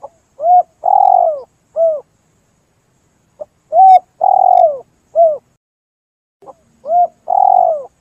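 Spotted dove (tekukur) cooing: a three-note phrase, a short coo, a longer coo and a short falling coo, repeated three times about every three seconds. It is the lively 'gacor' song used as a lure call to attract other spotted doves.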